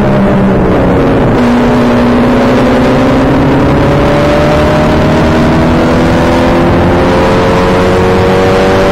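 Open-wheel race car's engine heard onboard, its note falling as it slows for a corner. About a second and a half in the pitch steps, then climbs steadily as the car accelerates out, with wind and road noise underneath.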